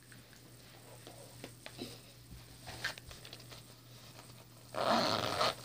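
Soft rustling and handling of a cloth and a doll close to the microphone, with a louder burst of rubbing near the end, over a steady low hum.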